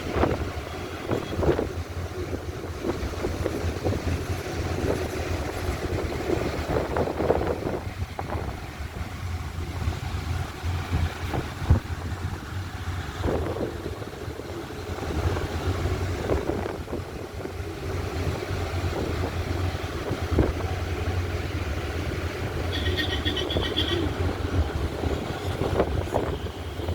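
A car driving, with a steady low rumble of engine and road noise and occasional knocks and bumps. A brief high-pitched tone sounds about 23 seconds in.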